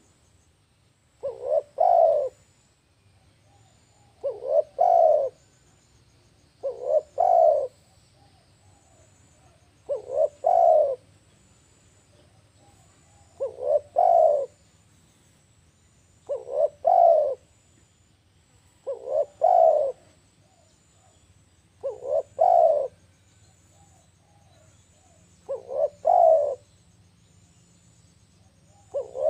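Spotted dove cooing: a low three-note phrase, two short notes and a longer, louder final coo, repeated about every three seconds.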